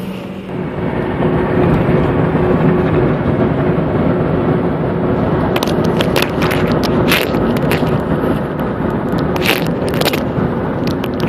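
Road noise inside a moving car: a steady rumbling hiss with a faint held tone. From about halfway in it is broken by scattered sharp crackles and clicks.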